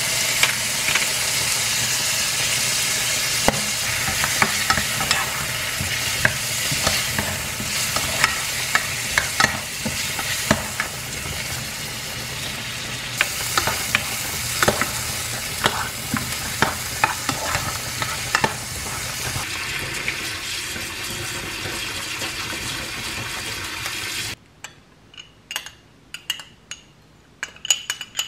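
Shrimp, garlic and mushrooms sizzling in oil in a frying pan, with frequent short scrapes and taps of a wooden spatula stirring them. Near the end the sizzling cuts off suddenly, leaving only a few light clicks and taps.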